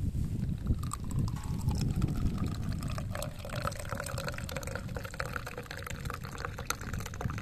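Tea being poured into a cup, a steady pour lasting several seconds.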